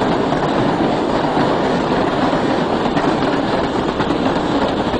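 American Flyer electric model train running along its track, a steady rattling clatter of the wheels and motor.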